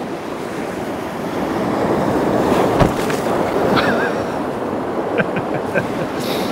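Sea surf washing and breaking against a rocky shore in a strong wind, swelling over the first couple of seconds, with a dull thump near the middle.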